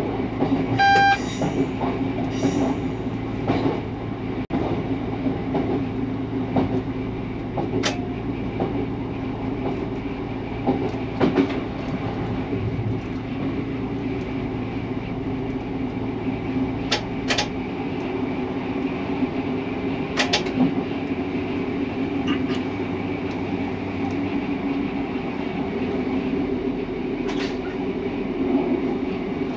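A Class 150 diesel multiple unit running along the line: a steady diesel engine drone and wheel-on-rail rumble, with occasional sharp clicks. A short beep sounds about a second in, and a lower part of the drone fades out near the end.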